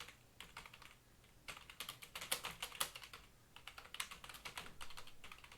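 Fingers typing on a computer keyboard: quick, irregular runs of key clicks with a short pause about a second in.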